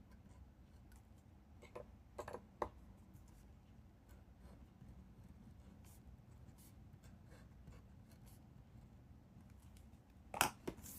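Pen writing on paper: faint scratching, with a few short taps about two seconds in and a louder knock near the end.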